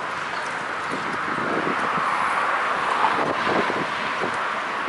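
Steady street noise as a long line of bicycles rides close past, with wind on the microphone.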